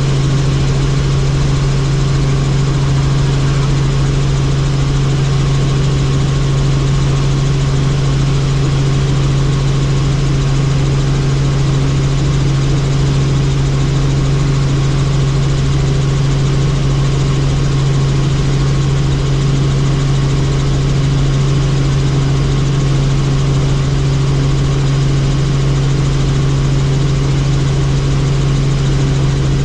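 Helicopter in flight heard from inside the cabin: a loud, steady drone of engine and rotors, with a strong low hum over an even rushing noise that does not change.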